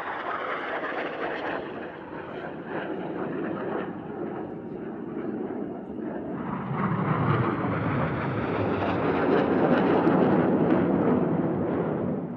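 Jet engine noise from BAE Hawk jet trainers flying a display, a steady rushing sound that grows louder from about halfway through and is loudest near the end.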